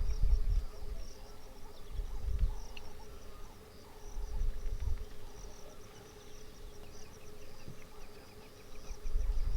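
Insects chirping in rapid, even pulses over a steady drone, with low rumbles swelling and fading every couple of seconds, loudest at the start and near the end.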